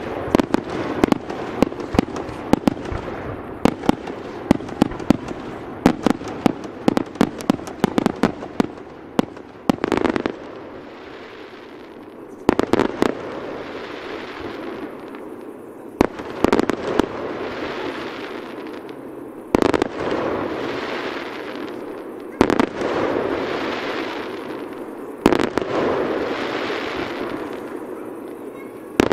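Aerial fireworks display: a rapid barrage of sharp bangs for the first ten seconds, then single shell bursts every three seconds or so, each trailing off in a fading rush of crackle.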